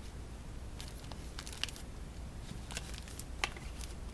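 Playing card decks in their boxes being handled: a few soft, scattered clicks, taps and crinkles, as of shrink-wrapped card boxes moved and set down.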